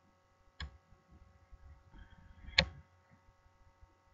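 Two computer mouse clicks, a soft one about half a second in and a sharper, louder one past the middle, over a faint steady electrical hum.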